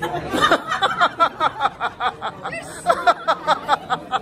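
People laughing, in quick repeated ha-ha pulses.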